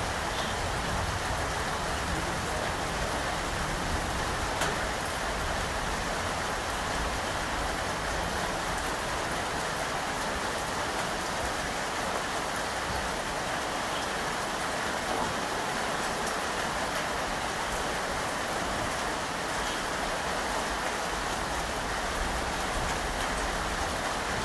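Steady rain falling: a constant, even hiss with a few separate drop ticks.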